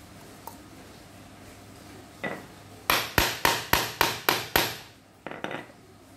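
A hammer striking a snap-button setting punch seven times in quick succession, about four blows a second, to set a four-part snap fastener through cloth; a single lighter knock comes before the run and a couple of softer knocks after it.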